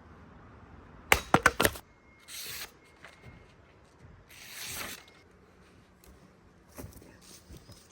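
A quick clatter of four or five sharp knocks about a second in, followed by two short, soft rushing noises.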